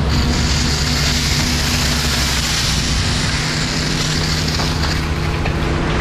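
Firefighting hose nozzle flowing, a steady hiss of water spray that eases off about five seconds in, over the steady hum of an engine running, the fire engine's pump.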